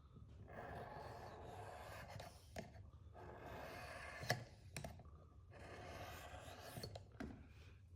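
Abrasive stone of a Work Sharp guided sharpener drawn in long strokes along a steel broadhead blade: three long, faint scrapes, with a sharp click about four seconds in. The strokes are grinding the bevel far enough to raise a burr on the back edge.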